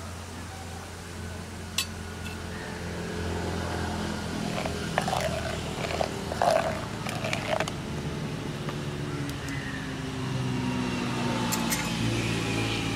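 A steel ladle stirring milk in a clay pot, knocking and clinking against the pot several times between about five and eight seconds in, over a steady low hum in the background.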